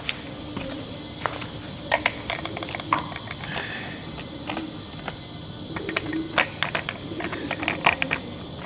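Steady high chirring of crickets, with scattered sharp clicks and light knocks of parts and tools being handled. The knocks come in clusters, about two seconds in and again late on.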